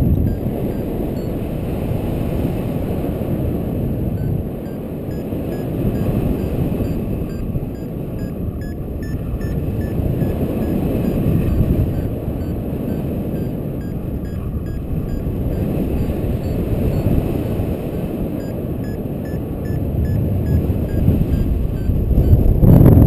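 Loud wind rushing over the microphone in flight, gusting harder near the end. Through it, the faint rapid beeping of the paraglider's variometer, the tone it gives while the glider is climbing.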